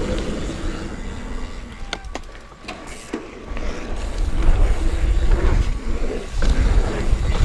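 Mountain bike riding along a dirt trail: wind rumbling on the camera's microphone over tyre noise and the bike's rattles and clicks, dipping briefly and then growing louder from about halfway.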